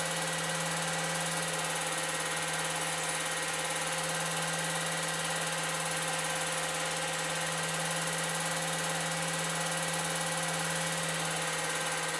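Steady mechanical whir of an 8mm film projector running during the film's transfer: a constant motor hum with a few steady tones and hiss, unchanging throughout.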